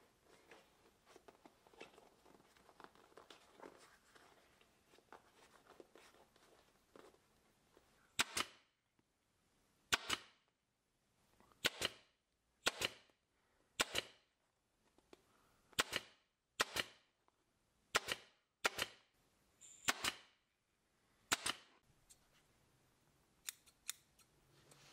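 Upholstery staple gun firing about eleven single sharp shots, roughly a second apart, driving staples through a synthetic-leather cover into a bicycle saddle base. Before the shots there is faint rustling as the cover is stretched over the saddle, and near the end there are two lighter clicks.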